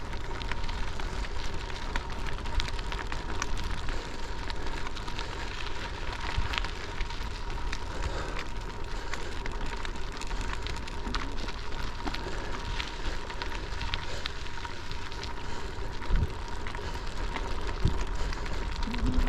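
Bicycle tyres rolling over a gravel road, a steady crunching crackle of many small stones with wind noise, and a few knocks near the end.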